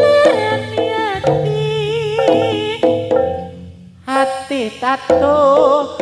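Live East Javanese music accompanying a bantengan (bull-mask) dance: a wavering, ornamented melody over percussion and low sustained tones. It drops away briefly just before four seconds in, then comes back in.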